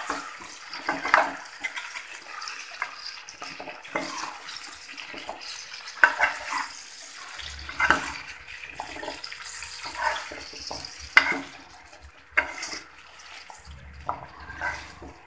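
A spoon stirring and scraping around a kadai of pickle mixture frying in oil, with a soft sizzle under the sharper scrapes and knocks that come every second or two.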